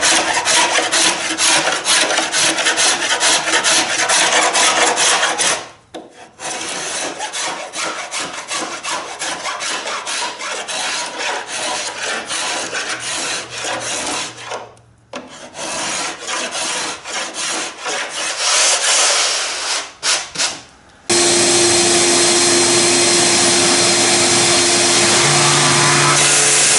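Hand scraper scraping hardened CA glue blobs off a cedar-strip kayak hull in quick, repeated strokes, with short pauses about 6 and 15 seconds in. About 21 seconds in, a random orbital sander with 80-grit paper starts running steadily on the hull.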